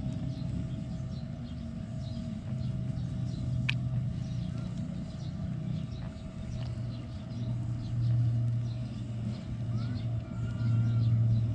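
Low steady motor drone, swelling twice in the second half, with faint swishing of water as a small trevally is held and moved back and forth in shallow water to revive it.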